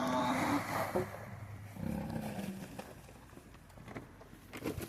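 Beef cattle mooing: a low call in the first second and another about two seconds in, followed by a few faint knocks.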